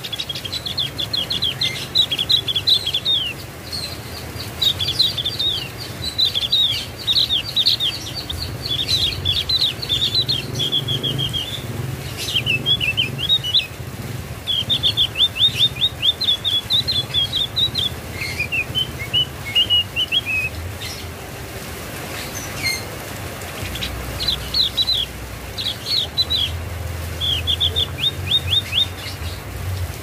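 Javan grey-throated white-eye (opior jawa) singing: rapid runs of high chirping notes in bursts of a few seconds, with short pauses between them. A steady low rumble runs underneath.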